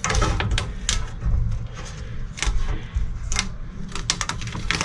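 Irregular light clicks and clatter of transmission valve-body parts, the separating plate and small metal pieces, being handled and set down on a workbench, with a quick run of ticks near the end, over a steady low rumble.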